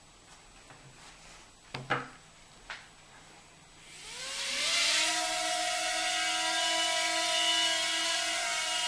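A few sharp clicks, then an Eachine H8 Mini micro quadcopter's small brushed coreless motors spin up about four seconds in with a rising high whine, settling into a steady whine as it lifts off and hovers.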